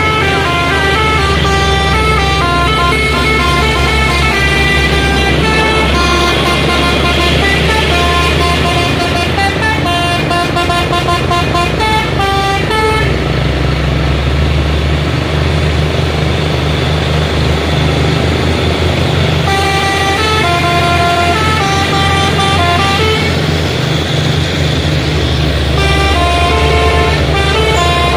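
Multi-tone vehicle horn tooting a melody of short notes that step up and down in pitch, over the steady low rumble of heavy trucks.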